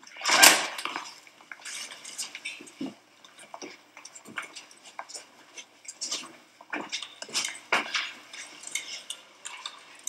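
Several people filing out of a small room: scattered footsteps and shuffling with small clinks and knocks, the loudest a sharp knock about half a second in.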